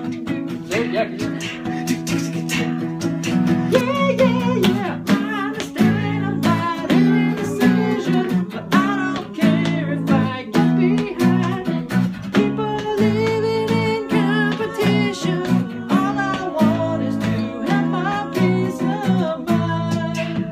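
Acoustic guitar strummed in a steady rhythm of chords, with a voice singing along from about four seconds in.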